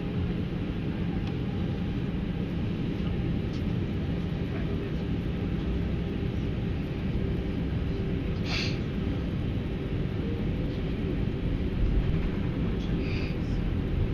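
Steady engine rumble and cabin noise inside an Airbus A320 airliner, with a low hum throughout. There is a short sharp click about eight seconds in, and a brief higher-pitched sound near the end.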